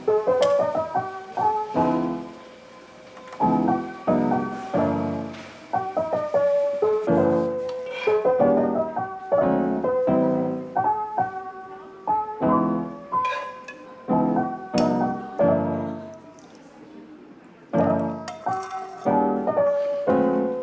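Background piano music, played in short phrases with a couple of brief pauses.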